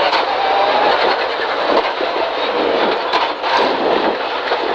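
Rally car engine running hard under load, heard inside the cabin over loud tyre and gravel noise from the stage surface; the gearbox shifts down from third to second partway through.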